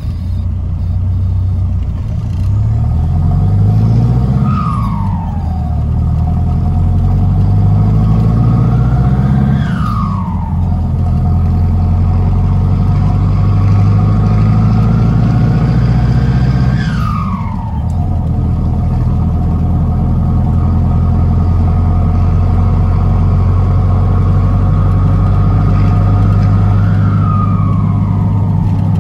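Ford F1000 pickup's turbo diesel heard from inside the cab, accelerating through the gears: engine revs climb in each gear and drop at four upshifts. Each shift is marked by a falling whistle from the turbo.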